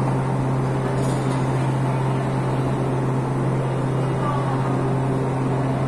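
Steady low hum of a metro train standing at the platform with its doors open, with passengers' voices in the background.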